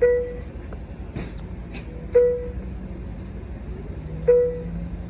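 Train bell ringing with slow, even single dings about two seconds apart, each with a clear pitch that fades quickly, over a low steady hum from the idling train.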